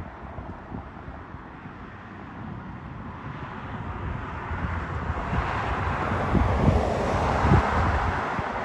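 A pickup truck passing close at highway speed: a tyre-and-engine whoosh that swells from about three seconds in and is loudest near the end. Wind buffets the microphone throughout.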